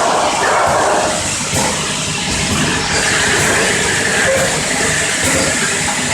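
4-nozzle piston pump filling and capping machine running: a steady, loud mechanical clatter with hiss and a few sharp knocks.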